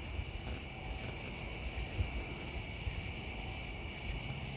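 A chorus of night insects: a steady high trill with a fainter, even pulsing above it about four times a second.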